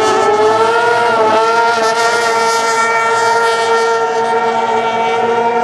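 Racing outboard engines of 750cc Modified Runabout boats running flat out, a steady high-pitched drone with several tones stacked together. The pitch wavers and dips briefly in the first second and a half.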